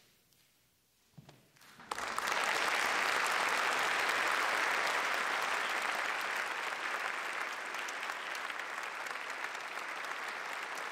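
Near silence, then an audience bursts into applause about two seconds in and keeps clapping steadily.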